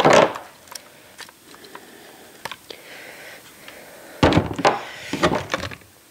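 Clear plastic locomotive packaging being handled: a few light clicks, then a burst of crackling and rustling plastic about four seconds in, as the wheel protectors are worked off the model locomotive.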